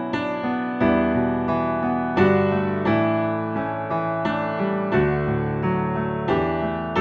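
Piano music: chords struck at an even, unhurried pace, about every 0.7 seconds, each ringing and fading before the next.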